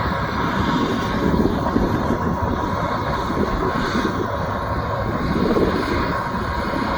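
Combine harvester running steadily, its engine and machinery making a continuous loud drone with a steady whine on top.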